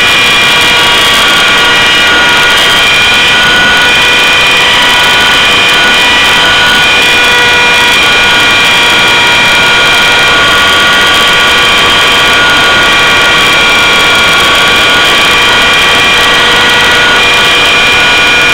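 Align T-Rex 600 CF radio-controlled helicopter in flight, heard from a camera mounted on board: a loud, steady whine of its drive train and spinning rotor over rushing air, the pitch shifting slightly a few times.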